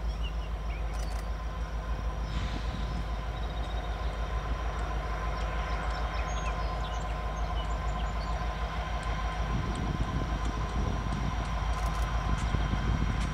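A lash-up of diesel-electric locomotives heading a freight train as it approaches, their engines giving a steady low rumble that grows a little louder over the last few seconds.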